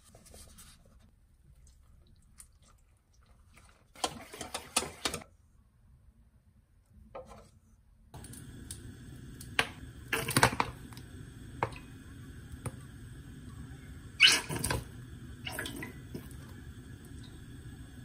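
Dry batter flour tipped from a paper cup into a stainless steel mixing bowl, quiet apart from a burst of rustling about four seconds in. Then cooking oil is poured from a plastic bottle into a deep nonstick pot on a gas hob, with a few louder knocks and splashes over a steady background hum.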